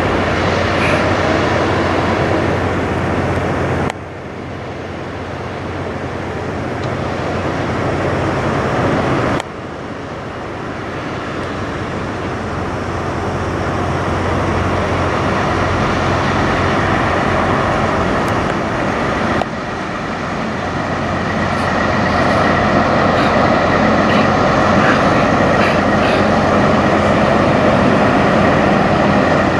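Diesel semi-truck engines running as tractor-trailers pull slowly through, with road traffic around them. The sound cuts off abruptly three times and then builds up gradually again each time.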